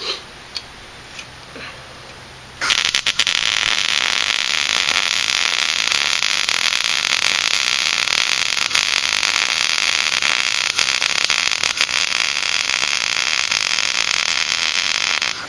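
MIG welder arc crackling steadily through one continuous slot weld, filling a slit in a seat bracket. It starts about two and a half seconds in after a few light clicks, runs for about twelve seconds and cuts off just before the end.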